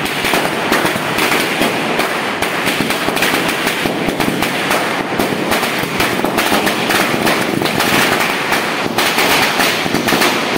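A string of firecrackers going off in a rapid, unbroken rattle of loud cracks, many bangs a second.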